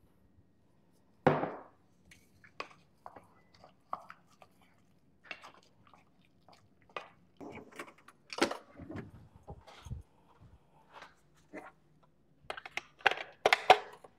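Irregular knocks and clatters: a wooden spurtle thunking against a stainless steel saucepan as eggs are worked into thick choux dough, the loudest thunk about a second in, then kitchen utensils clattering in an opened drawer, with a quick run of clinks and knocks near the end.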